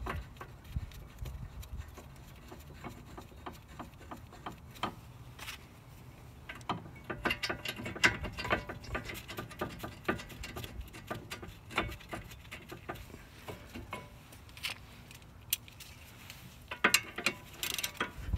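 Hand ratchet clicking in quick runs as the front brake caliper bracket's 17 mm bolts are threaded in and tightened, with small metal clinks from the bracket and bolts between runs.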